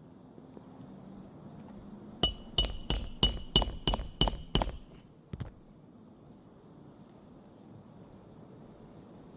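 Hammer driving a roofing nail into a shingle: a quick run of about eight ringing metal-on-metal strikes, about three a second, then one faint knock a moment later.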